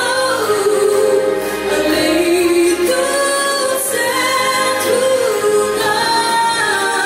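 A woman singing a gospel song into a microphone, holding long notes and gliding between them.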